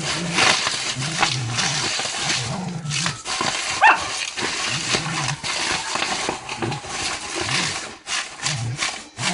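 Shetland sheepdog growling in play as it bites and tears at bubble wrap, with the plastic crinkling and cells popping in quick snaps throughout.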